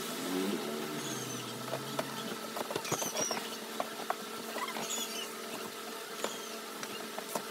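Household room tone: a steady hum with scattered light clicks and knocks, a low falling tone in the first two seconds, and a few short, high squeaks or chirps.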